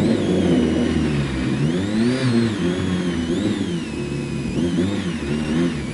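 Rally car's engine heard from inside the cabin, revved in several blips, its pitch rising and falling, the biggest about two seconds in.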